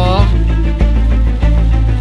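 Background music with a heavy bass beat that hits about every 0.6 seconds.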